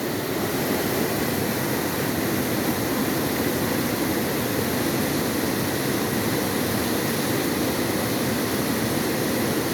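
Waterfall's water rushing steadily, an even noise that holds without a break.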